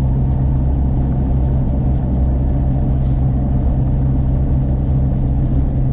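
Steady low drone of a Jeep driving along at an even speed, engine and road noise heard from inside the cabin.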